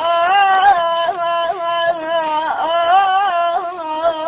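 A man singing an Arabic song, holding a long drawn-out vowel whose pitch sways and bends in melismatic turns without a break.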